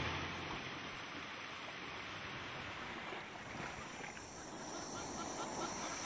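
Steady wash of surf and wind. From about four seconds in, a faint, quick ticking call repeats about five times a second.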